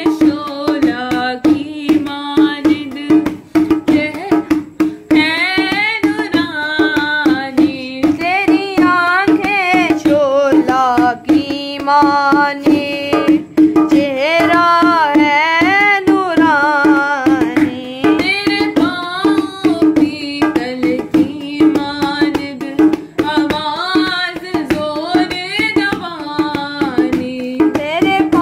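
Hindi Christian worship song: a solo voice sings a winding, ornamented melody over hand-drum percussion, with a steady held note underneath.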